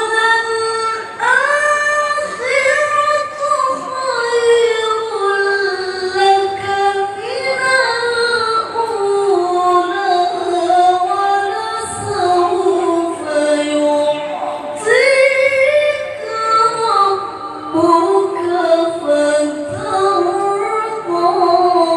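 A high voice reciting the Qur'an in drawn-out melodic tilawah style, with long ornamented notes and short pauses for breath.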